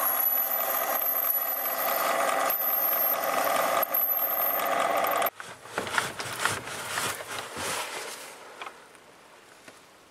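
Metal lathe running with its gear train humming while a tool swung on a ball-turning attachment finishes cutting a metal ball. The lathe is switched off about five seconds in and the steady machine sound stops abruptly, followed by scattered clicks and knocks from handling the chuck and tooling.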